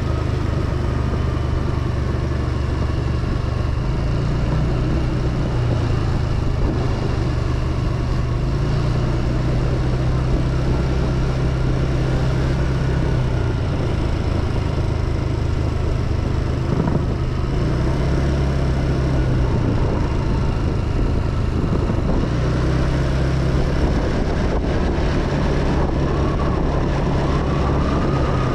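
Motorbike engine running while riding, its pitch shifting up and down every few seconds with throttle and gear changes, over a steady rushing noise.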